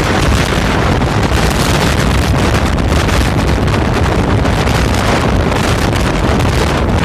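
Gale-force blizzard wind, about 27 m/s, buffeting the microphone in a loud, steady roar.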